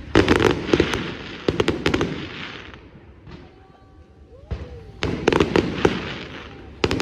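Fireworks display: volleys of sharp bangs and crackling, with a lull of a second or two in the middle before the next volley.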